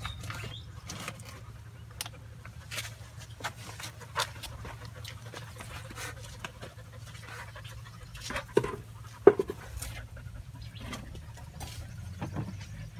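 Thai Ridgeback dog sniffing and panting with its nose pushed into a gap while hunting for a lizard: a run of short, irregular breaths, with one louder sharp sound about nine seconds in.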